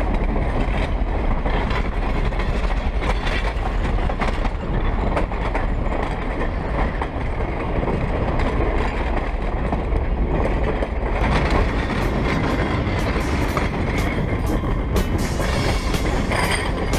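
Passenger train car's wheels rolling on the rails, heard close up at track level: a steady, loud rumble, with sharp clicks and knocks from about eleven seconds in.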